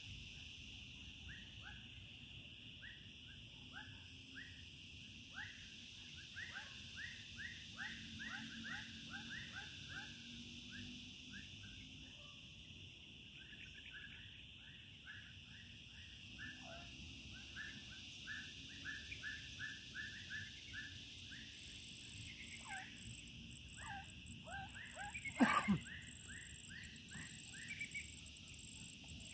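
Streamside wildlife chorus: a steady high insect drone, with runs of short, quick chirps that fall in pitch from birds. About 25 seconds in comes one louder call sweeping steeply downward.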